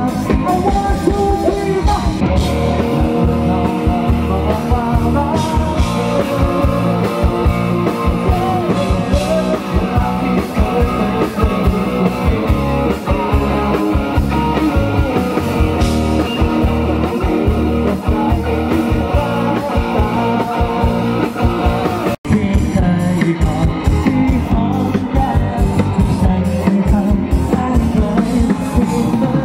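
Live rock band playing loud through a PA: electric guitar and drums with a male singer. The sound cuts out for a split second about 22 seconds in.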